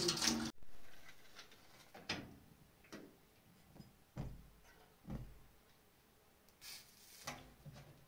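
Water running from a kitchen tap cuts off about half a second in. Then come scattered light clicks and knocks of handling at a gas stove as a burner is lit, with two dull thuds in the middle and a short hissing scrape near the end.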